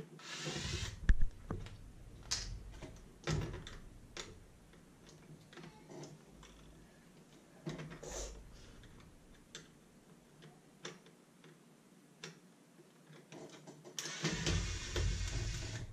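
Cordless electric screwdriver whirring in two runs, about a second long near the start and again for the last two seconds, backing screws out of a plastic radio case. In between come scattered clicks and knocks of the tool and small parts against the plastic, one sharp knock about a second in.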